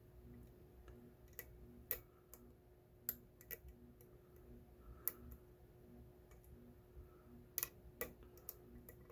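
Lock pick clicking against the spring-loaded security pins inside a 5-pin ACE padlock while it is being picked: irregular sharp metallic clicks, a few louder ones near the middle and near the end.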